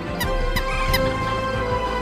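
Female purple swamphen calling its flock: short, squeaky, nasal notes repeated about two or three times a second, over steady held tones that sound like background music.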